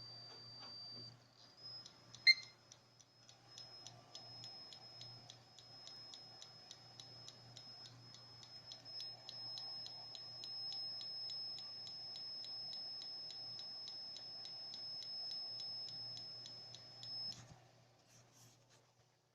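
Seagate hard drive giving a steady high whistle with rapid even ticking, about four ticks a second, and one sharp louder click a couple of seconds in. Whistle and ticking stop abruptly near the end.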